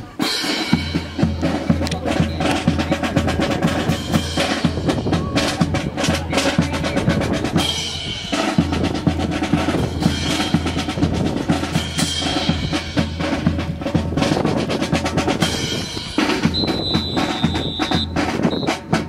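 Drum-heavy march-style music with snare rolls, bass drum and a steady bass line, starting suddenly and breaking off briefly about eight seconds in.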